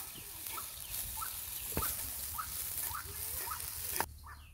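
Onions frying in oil in a small iron kadai over a wood fire, a steady sizzle that cuts off about four seconds in, with one sharp knock of the metal spatula on the pan about two seconds in. A bird chirps over it about every half second.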